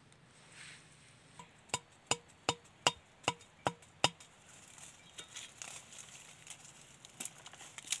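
Seven sharp knocks, about two and a half a second, from a machete striking a small wooden stake to drive it into the ground, each with a short metallic ring. They are followed by soft rustling and scraping of hands working in soil and dry leaves.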